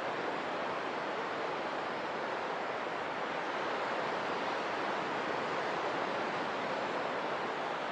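Steady rushing outdoor ambience, an even wash of noise with no distinct events.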